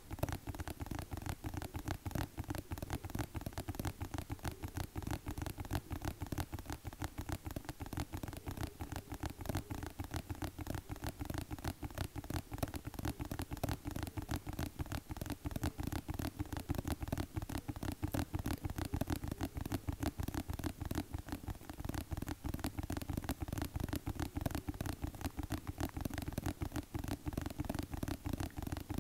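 Tapping without pause, many quick taps a second, each tap dull and deep.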